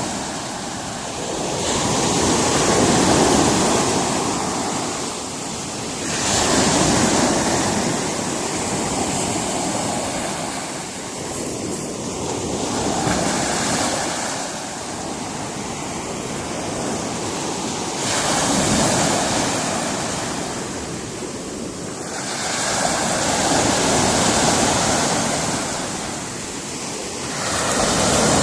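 Sea surf breaking on a rocky shore: waves surge in one after another, every four to six seconds, each a rushing swell of noise that ebbs before the next.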